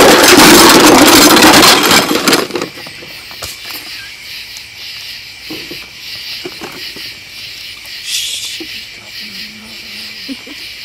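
Loud rustling handling noise for the first two and a half seconds, then a steady high-pitched chorus of night insects.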